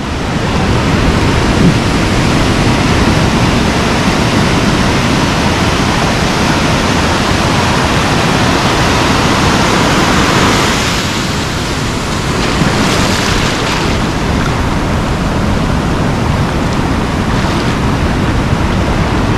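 Ocean surf washing and breaking along the shore in a continuous rush, swelling louder as a wave breaks about ten seconds in.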